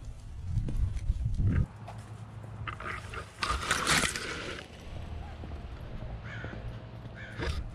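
Palm fronds brushing and scraping across a GoPro's housing, a loud rustling hiss about three and a half seconds in that lasts about a second. Before it, wind and handling rumble on the camera's microphone.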